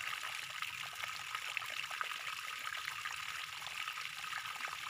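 Water trickling steadily, a continuous running-water hiss dotted with many small drips and splashes.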